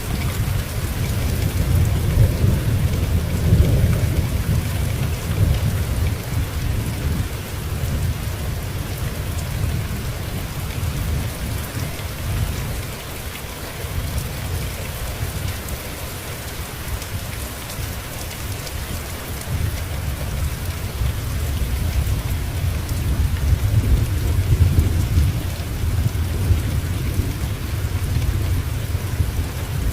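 Steady rain hissing, with a low rolling rumble of thunder under it that swells over the first several seconds, fades in the middle and builds again near the end.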